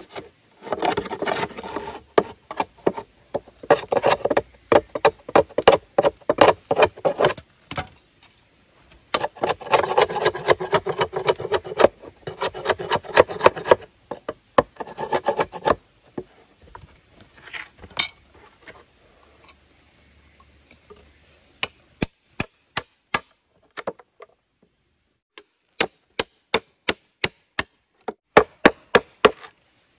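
Bamboo being worked by hand with a tool: two long runs of quick rubbing, scraping strokes, then spaced sharp knocks in small clusters in the second half.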